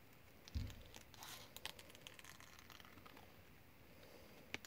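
Scissors snipping through gasket paper in a few short cuts, with faint paper rustling. A soft thump comes about half a second in, and a sharp click near the end.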